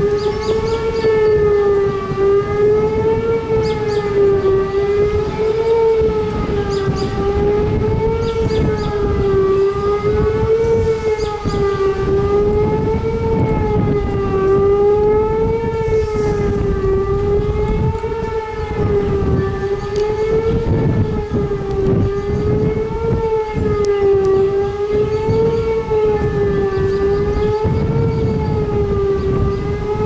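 Outdoor tornado warning siren sounding a continuous tone that wavers gently up and down in pitch about every two and a half seconds, over a low rumble of wind on the microphone.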